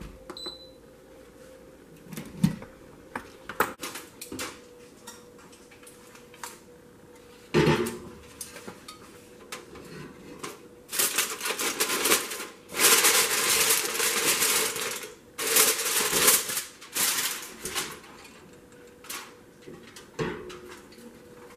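Aluminium foil crinkling loudly in several bursts as it is peeled off and crumpled away from a pot. Before it come a few separate knocks and clicks of the pot being handled.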